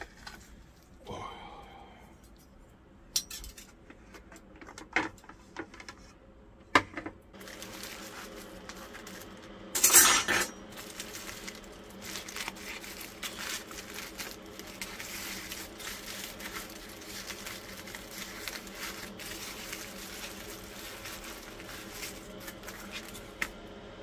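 Dishes and cutlery being handled: a few sharp clinks in the first seconds and a louder clatter about ten seconds in. Under them is a steady machine hum that starts about seven seconds in.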